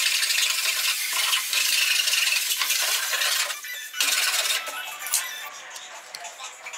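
Handsaw cutting through a pallet board: a loud, steady rasping that stops about three and a half seconds in. Quieter handling noise follows, with one sharp tap about five seconds in.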